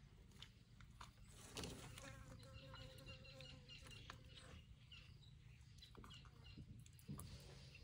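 Faint rustling of leafy branches as an elephant browses, once about a second and a half in and again near the end, with a small bird chirping repeatedly and a brief buzz in between.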